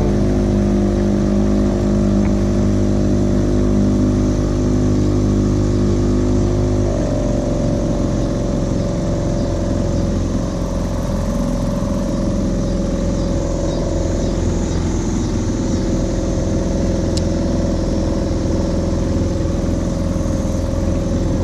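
Mercury 2.5 hp outboard motor running steadily, pushing the jon boat along; about seven seconds in its note shifts to a different pitch.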